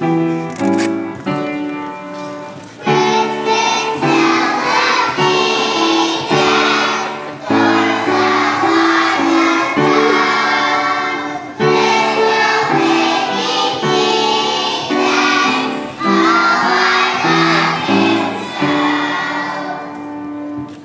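A group of young preschool children singing a song together over an instrumental accompaniment. The accompaniment plays alone for about the first three seconds before the voices come in.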